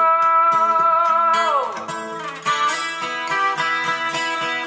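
A song with guitar backing played through Pioneer PE-101A loudspeakers: a long held note slides down about a second and a half in, and guitar chords carry on after a brief dip.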